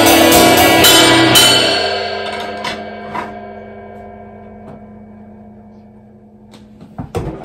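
A drum kit's final hits with crashed cymbals over the song's closing guitar chord, four strong strikes in the first second and a half, then the cymbals and chord ring out and slowly fade. A few faint knocks near the end.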